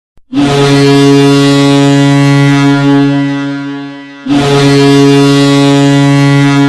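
Ice hockey goal horn sounding two long, deep, steady blasts, the second starting about four seconds in right after the first dies down: the signal of a home-team goal.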